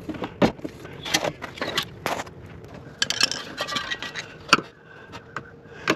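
Irregular clicks, knocks and scraping of hands working at the plastic safety-lock electrical plug of a car's EVAP vent valve, which has not yet come loose.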